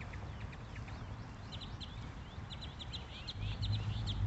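Many short, high bird calls chirping over one another, growing busier after about a second and a half. A low rumble comes in near the end.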